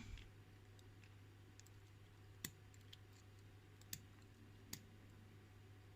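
Near silence broken by three faint, short clicks of tweezers against the pins of a disassembled lock cylinder while a pin is pulled out.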